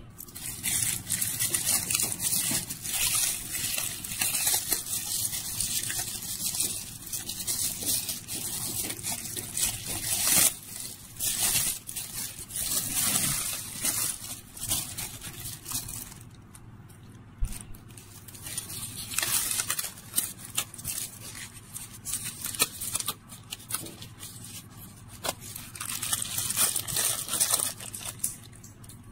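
Thin plastic bag crinkling and rustling as it is unfolded by hand, in crackly bursts with a quieter pause about halfway through.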